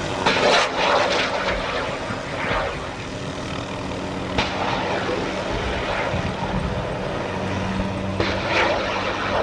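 A light gunship helicopter flying past with a steady rotor and engine drone, broken by loud rushing bursts as it fires its weapons: one at the start, another about two and a half seconds in, and a longer one near the end, with a sharp crack about four seconds in.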